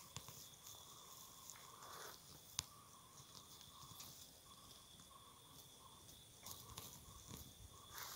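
Near silence: a faint steady high-pitched tone and a faint on-and-off chirping tone, with scattered soft ticks and one sharp click about two and a half seconds in.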